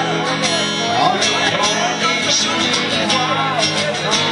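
Live band playing a country-style song with guitar.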